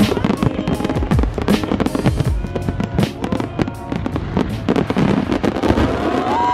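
Fireworks display going off in a rapid volley of bangs and crackling bursts, several a second, with music playing underneath.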